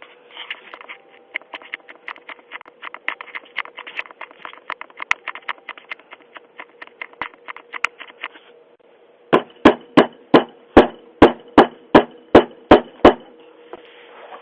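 Rapid, irregular knocking on a front door for about eight seconds, then a run of eleven heavy bangs on it, about three a second. Heard through a Ring video doorbell's microphone.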